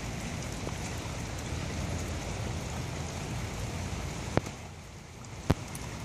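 Steady hiss of a heavy rain shower falling on parked cars and pavement. Two sharp taps about a second apart stand out near the end.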